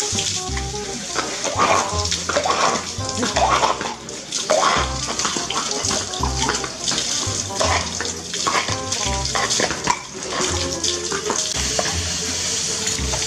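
Water from a hose running and splashing off a horse's coat onto a paved floor during a bath, over background music with a regular beat.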